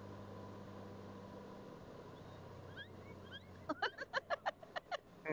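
Yorkie puppy squeaking in a quick run of about nine short, high squeaks in just over a second near the end, over a low motorcycle hum.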